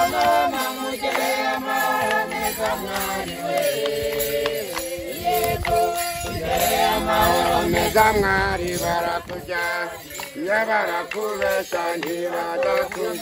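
A group of voices singing a traditional Kinyarwanda bridal send-off song together, with a few sharp percussive hits among the phrases.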